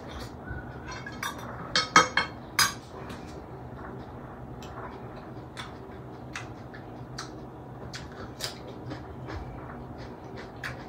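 Close-up eating sounds: a quick run of clinks from plates and a glass bowl about two seconds in, then scattered crunching and mouth clicks as a man chews a raw vegetable stalk.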